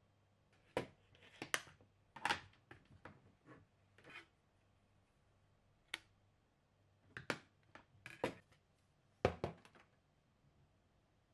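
Makeup compacts and cases being handled on a table: about a dozen sharp clicks and taps, irregularly spaced, as lids snap open and shut and cases are picked up and set down.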